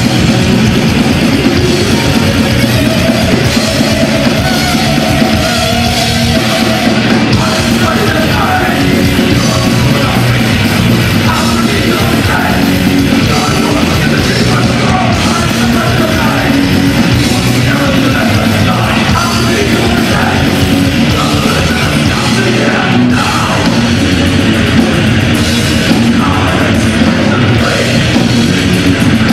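Heavy metal band playing live, loud and distorted: electric guitars, bass and pounding drums, with shouted vocals at times.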